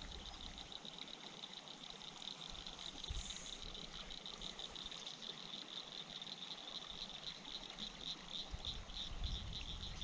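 Evening chorus of chirping insects or frogs: rapid, even pulses on one high note, several a second, going on steadily. Light wind rumble on the microphone comes back near the end.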